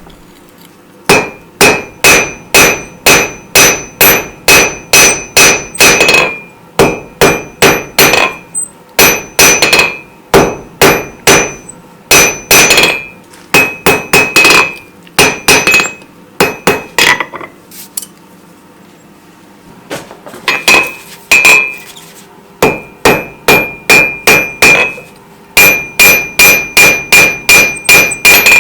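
Rounding hammer striking hot steel on an anvil in runs of quick blows, about three a second, each leaving a high ringing note from the anvil. The hammering breaks off for a few seconds a little past the middle, then starts again.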